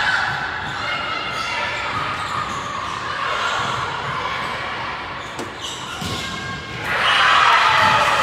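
Indoor volleyball rally echoing in a large gym: players calling out and the ball being struck, then a loud burst of team shouting and cheering about seven seconds in as the point is won.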